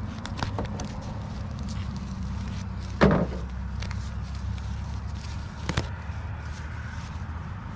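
Kitchen shears cutting through a rooster's wing joint: a few light clicks, then one sharp snap about three seconds in and a smaller one near six seconds, over a steady low hum.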